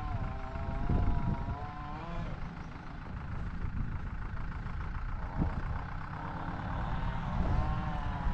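A motor vehicle's engine running under a low rumble, its whine wavering up and down in pitch, loudest in the first two seconds and again near the end.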